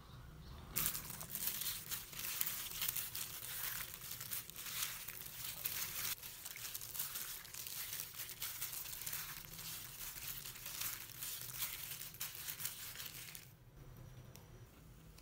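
A hand in a thin disposable plastic glove massaging sliced raw beef in its marinade in a glass bowl. It makes a dense run of plastic crinkling and wet squishing that starts about a second in and stops shortly before the end.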